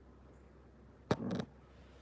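A single short sound from a month-old red Labrador puppy, starting sharply about a second in and lasting about a third of a second.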